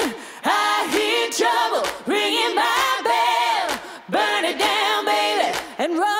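Background music: voices singing in harmony with little or no instrumental backing, in short phrases of held, wavering notes.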